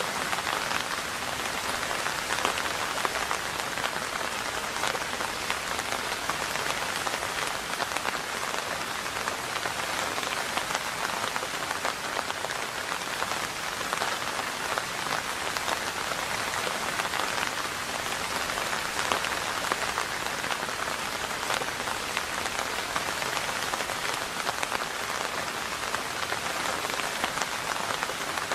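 Steady rain falling on a surface: an even hiss of rainfall with many small, separate drop impacts.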